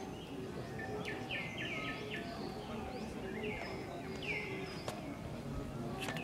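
Birds calling in quick runs of short, curving chirps, several groups over the few seconds, over a low background hubbub. Two sharp clicks sound near the end.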